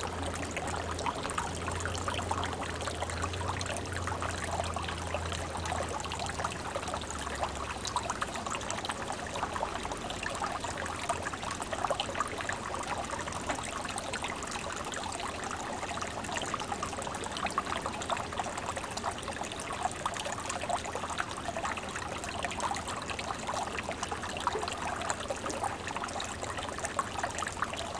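Pond water steadily babbling and trickling, a dense run of small splashes and bubbles at the surface.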